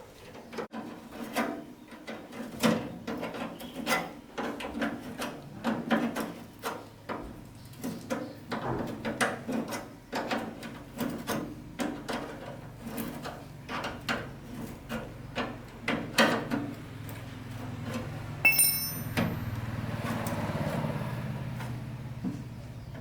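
Irregular knocks, clicks and clatter of hand work on a machine, such as tools and parts being handled. A brief high squeal about 18 seconds in is followed by a steadier rushing noise that swells for a few seconds.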